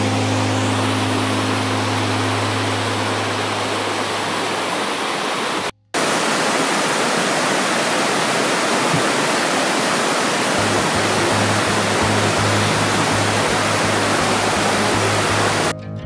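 Large waterfall's steady rushing water, with background music and its low bass line underneath. The water sound cuts out for a moment about six seconds in. A regular beat comes into the music about ten seconds in.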